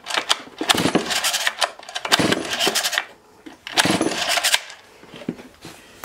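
Farmertec MS660 Stihl-clone chainsaw being pull-started: the recoil starter and the big two-stroke engine turning over in repeated pulls, with quieter gaps between them. The saw doesn't fire, which the owner takes for something wrong inside it.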